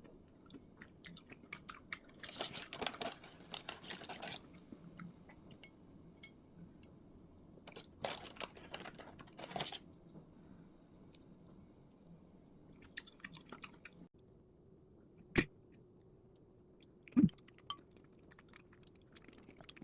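Close-up chewing and crunching of crisp food in two spells of a second or two each, with scattered small clicks between them. Two sharp knocks, a couple of seconds apart near the end, are the loudest sounds.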